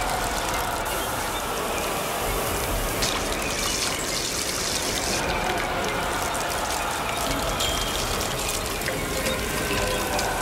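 Liquid gushing and trickling: the sound effect of blood streaming down the walls. The rushing stays steady, growing brighter and hissier for a couple of seconds a few seconds in.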